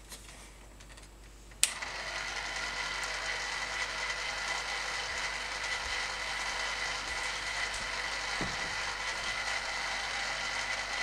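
Homemade electric agitator on a Paterson developing tank switched on with a sharp click about one and a half seconds in, its small motor then running steadily with a constant high whine as it turns the film reel for rotation development. Before it starts, a few light clicks from the agitator being seated on the tank.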